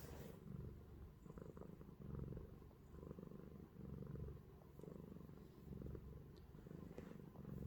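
Domestic cat purring softly, the purr swelling and fading with each breath about once a second.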